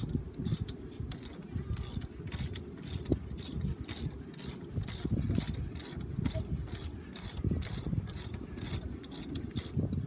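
Socket ratchet wrench clicking in irregular runs as it is swung back and forth, loosening the fastener that holds the pin at the rod end of a Cat D3 bulldozer's hydraulic cylinder, with low knocks of metal handling.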